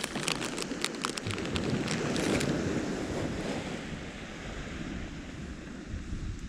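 Waves washing onto the beach with wind buffeting the microphone, swelling and then easing. A run of sharp clicks sounds in the first couple of seconds.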